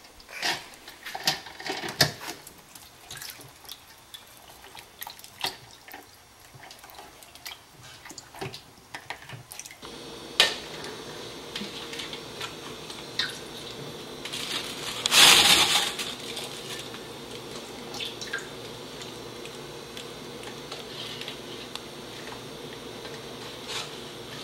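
Water splashing and dripping in a bowl as a pomegranate is pulled apart under water to free its seeds, in scattered small splashes and clicks. About ten seconds in a steady low hum comes in, and a louder rush of water lasts about a second around fifteen seconds in.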